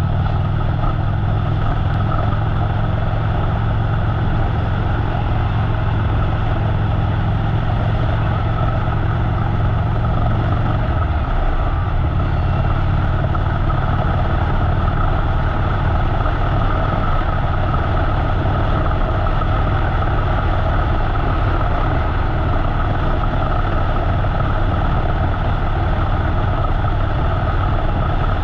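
Harley-Davidson V-twin motorcycle engine running steadily at road speed under a continuous haze of wind and road noise. About eleven seconds in, the engine note shifts slightly lower.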